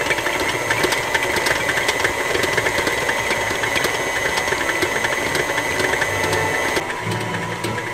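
KitchenAid Artisan stand mixer running steadily, its motor whining as the flat beater creams butter and sugar in the steel bowl, with fast ticking throughout. The motor whine stops about seven seconds in.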